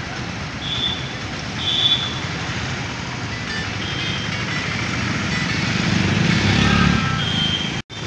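Road traffic on a wet road: a steady hiss of passing motorcycles, scooters and cars, with two short high beeps in the first two seconds and one vehicle passing louder about six seconds in. The sound cuts out for an instant near the end.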